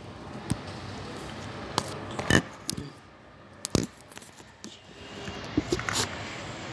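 Handling noise of a phone held and moved close to its microphone: scrapes and a series of sharp clicks and taps, the loudest a little over two seconds in.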